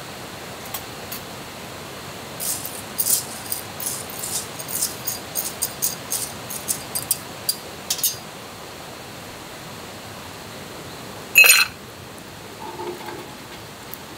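Steady hiss under a run of small, sharp clicks and crackles for several seconds, then a single loud ringing clink, like metal or glass being struck or set down.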